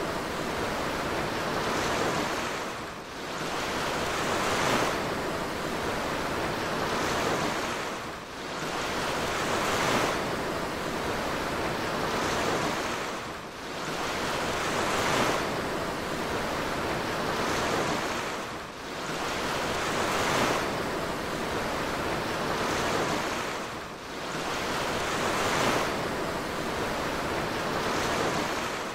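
Rushing sea wash from a cruise ship's churning wake and the open water around it, a steady noise of breaking water that swells and eases about every five seconds, with some wind.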